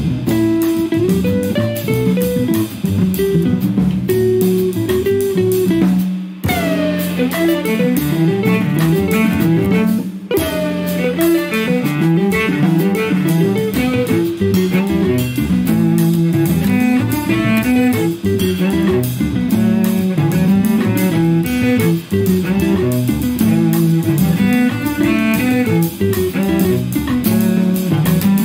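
Jazz quartet recording: cello, electric guitar, double bass and drums playing busy, fast-moving interweaving lines over cymbals.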